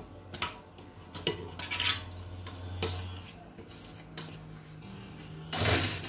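Mussels in their shells clinking and clattering against each other and the pot as they are tossed by hand in chermoula sauce, in irregular bursts with the loudest clatter near the end.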